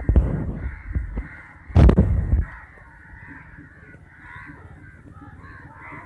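A flock of crows cawing continuously, many calls overlapping. Two loud rushes of noise, one at the very start and one about two seconds in, briefly drown them out.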